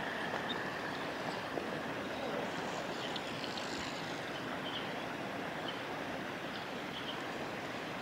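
Steady outdoor riverbank background noise, a mix of flowing water and distant hum, with faint short high bird chirps every second or two.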